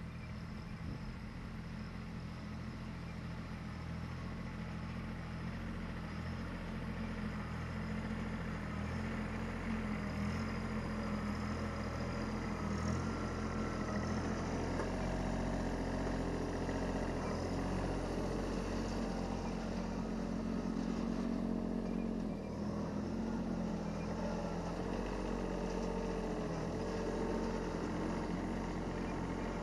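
Branson 2400 compact tractor's diesel engine running steadily, getting louder over the first fifteen seconds or so as the tractor comes closer, then holding level.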